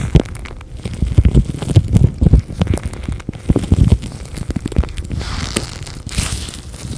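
Latex gloves handled close to the microphone: irregular crinkling and crackling with soft low thumps, turning to a softer, hissing rubbing sound about five seconds in.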